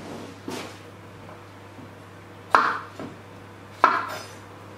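Kitchen knife chopping through a courgette onto a wooden chopping board, cutting off its ends: three separate chops, a light one about half a second in, then two sharper ones near the middle and toward the end.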